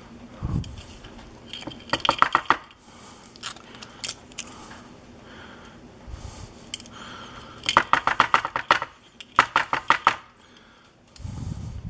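Small metal lock parts clicking and tapping as a pin-tumbler lock is taken apart and its pins and springs are worked out. The clicks come in three short bursts of rapid taps.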